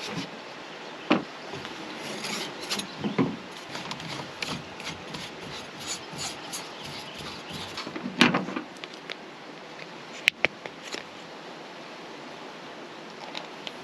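Objects being handled by hand: irregular rubbing and scraping with a few knocks, then a sharp click about ten seconds in.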